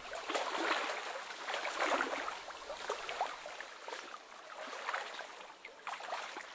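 Small waves lapping and trickling against a stony lakeshore, with footsteps on pebbles in the first couple of seconds.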